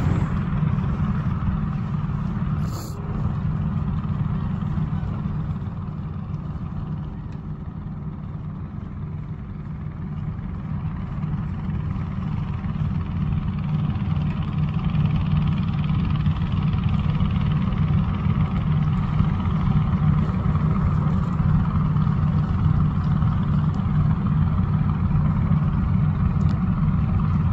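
A steady low engine rumble that eases slightly partway through and then builds again.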